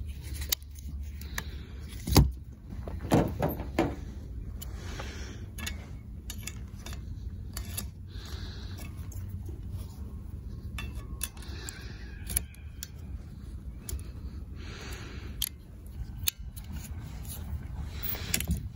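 Plastic clicks and rattling of windshield wiper blades being handled and snapped onto J-hook wiper arms, with a cluster of sharp clicks about two to four seconds in.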